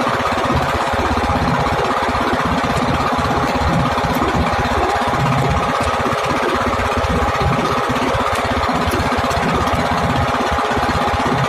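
A fishing boat's engine running steadily, with a fast, even knocking beat.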